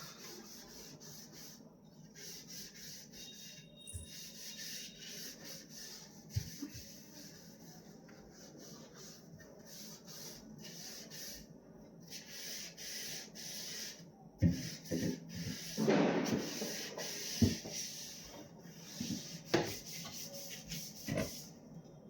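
Scouring pad scrubbing a fridge surface with baking soda and lemon, in repeated back-and-forth strokes, with a few light knocks in the second half.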